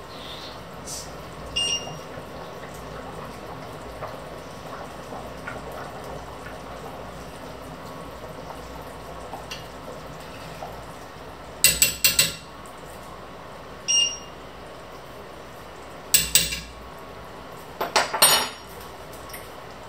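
A metal spoon stirring a thick creamy sauce in an enamelled cast-iron pot, clinking sharply against the pot: once early on, then in quick clusters over the second half. Under it, the sauce simmers steadily.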